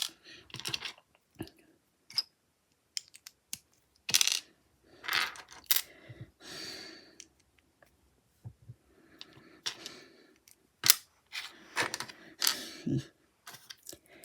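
Small plastic Lego pieces clicking and clattering as they are handled, picked through and snapped together, in a string of irregular sharp clicks.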